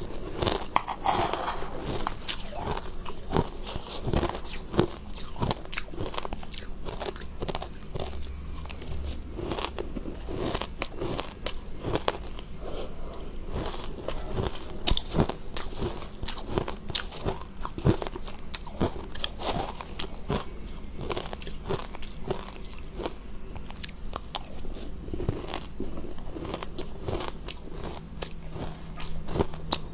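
Close-miked crunching of crushed ice being chewed, with dense crisp crackles and snaps throughout.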